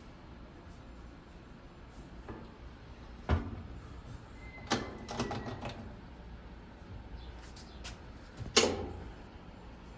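Scattered knocks and clicks of hands-on installation work on a washing machine: one about three seconds in, a small cluster around five seconds, and the loudest about eight and a half seconds in, over a low steady hum.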